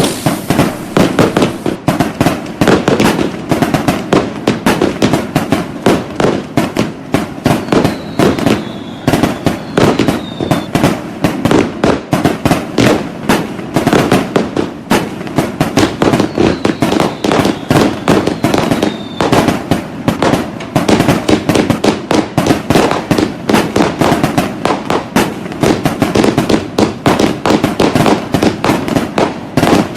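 Dense, continuous barrage of New Year fireworks and firecrackers, many bangs and cracks a second with no let-up. Two faint whistles falling in pitch come through, about 8 and 17 seconds in.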